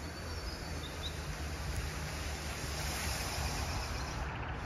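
Wind rushing over the microphone: a steady, noisy rumble that rises and falls a little, with no train passing.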